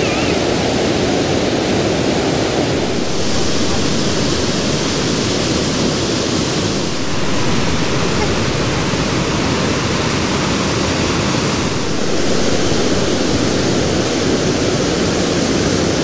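Large waterfall rushing loudly and steadily, a heavy river torrent crashing down over a rock ledge; the tone of the rush shifts a little three times, once growing hissier for a few seconds.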